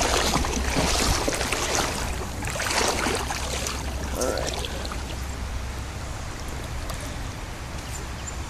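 Creek water running over the stream bed, a steady rushing noise that is louder and more uneven in the first three seconds, then settles.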